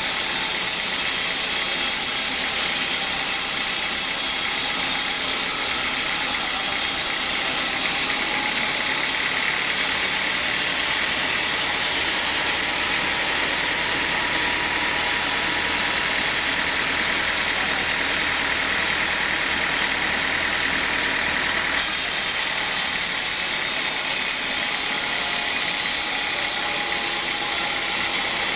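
Sawmill machinery running steadily at a constant level, a continuous mechanical drone; its tone shifts abruptly about eight seconds in and shifts back about twenty-two seconds in.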